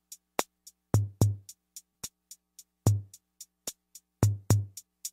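Music: a bare drum-machine beat with no other instruments, made of deep kick-drum thuds, a sharp snare-like crack every second and a half or so, and quick ticking hi-hats.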